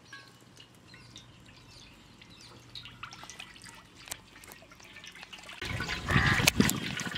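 Cooking oil poured in a stream from a steel pot into a large iron kadai, trickling and splashing on the metal; the pour grows much louder near the end.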